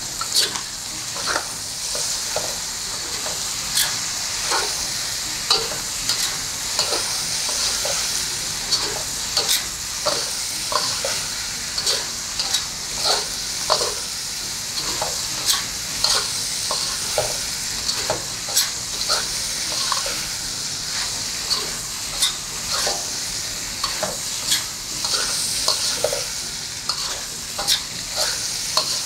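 Stir-frying: a spatula stirring and scraping seasoned fried pork and other ingredients in a hot pan, with a steady sizzle and frequent sharp clacks of the spatula against the pan, about one or two a second.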